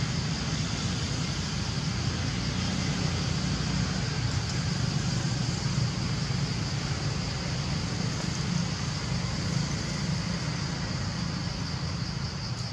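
Steady outdoor forest ambience: a continuous low rumble under a steady high-pitched drone of insects, with no calls from the monkeys.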